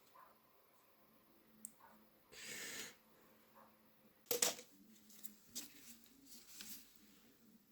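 Small handling noises: a short rustle, then a sharp click about four and a half seconds in, followed by several lighter clicks and taps.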